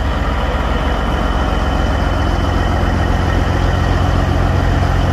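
Caterpillar C15 inline-six diesel in a Peterbilt 379 idling steadily, with an even low rumble.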